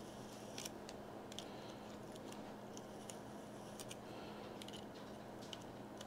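Faint, scattered small clicks of steel locking pliers gripping and turning the stuck metal centre piece of a fishing reel's live liner drag knob, over a low steady hum.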